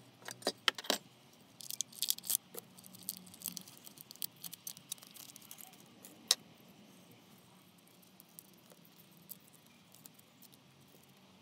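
Painted steel horn parts handled on a wooden bench: clicks and light metallic clatter, busiest in the first few seconds, with one sharp click about six seconds in, then only faint handling sounds.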